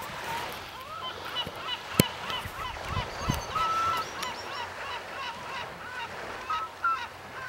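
Many birds calling at once: a continuous chorus of short, overlapping, rising-and-falling cries, with a few longer held notes among them. A single sharp click about two seconds in.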